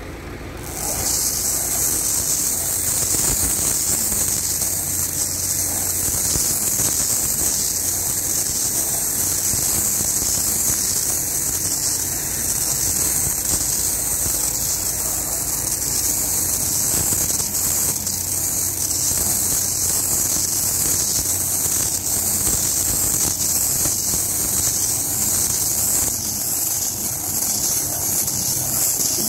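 A tractor running steadily while it powers a Metal-Fach Z560 bale wrapper that turns a round clover bale and winds stretch film around it. A steady hiss sits over a low engine hum, both coming up about a second in as the wrapping cycle starts.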